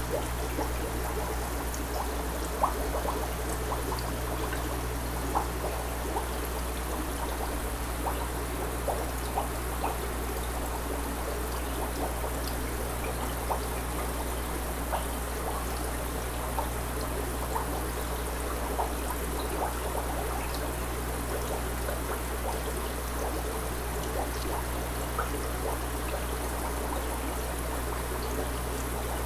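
Aquarium airstone bubbling steadily: a constant trickling water sound with small scattered bubble pops, over a low steady hum.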